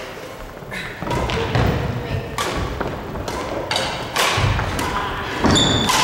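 Badminton players' footsteps thudding on a wooden gym floor, with a few sharp knocks and a short rubber-shoe squeak near the end.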